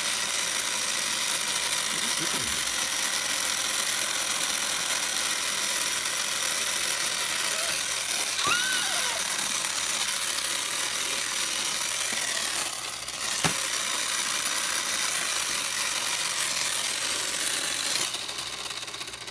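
Toy miter saw's battery-powered saw sound running as a steady buzzing whir while the saw head is held down, fading out near the end. A brief high squeal about halfway through and a single click a few seconds later.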